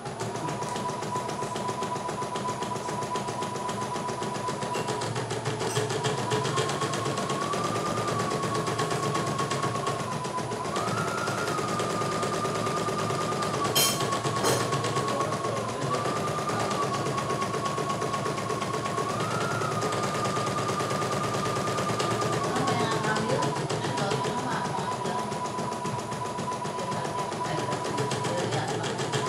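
CNY E900 portable embroidery machine stitching a design: rapid, steady needle strokes with a motor whine that steps up and down in pitch several times as the hoop moves. A few sharp clicks come about halfway through.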